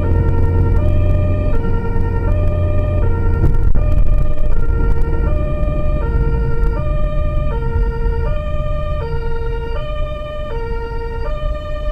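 German two-tone emergency siren (Martinshorn) on the transport car, switching between a high and a low tone about every three-quarters of a second. It is heard from inside the car over engine and road rumble.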